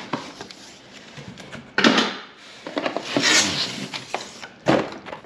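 Cardboard packaging being handled: a boxed amplifier wiring kit scrapes and slides against the cardboard shipping carton as it is pulled out, with a sudden thump about two seconds in, a longer scraping rustle after it, and another thump near the end.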